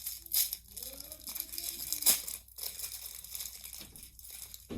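Plastic packaging crinkling and tearing as a package is opened by hand, with sharper rustles about half a second and two seconds in.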